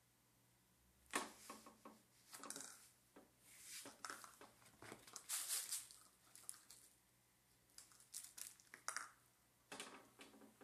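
Faint, scattered rustles and scuffs from a Papillon dog shifting about and nosing at a fabric toy, the longest a little past halfway.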